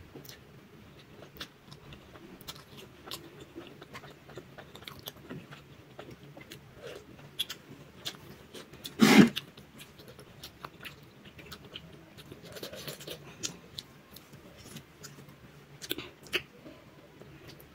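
Mouth sounds of someone eating spicy instant noodles: wet chewing with many small, irregular smacks and clicks. About nine seconds in comes one louder, brief noisy burst.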